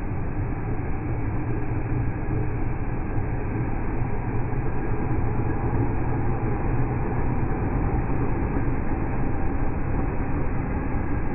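Nova LFS articulated bus pulling away from a stop, its engine and the street noise slowed down in slow-motion playback into a steady low rumble.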